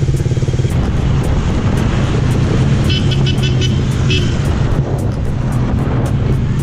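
Suzuki Raider R150 Fi's single-cylinder engine running steadily while riding, with road and wind noise. A few brief high chirps sound around three to four seconds in.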